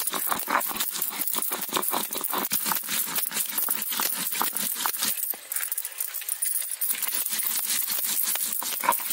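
Stone roller grinding whole spices and dried red chillies on a wet sil-batta stone slab: a rapid run of rough scraping and crunching strokes as the roller is pushed back and forth, with glass bangles clinking along with each stroke.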